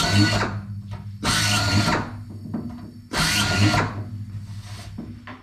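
Pneumatic air drill run in three short bursts on an aluminium wing spar, each burst winding down after the trigger is released.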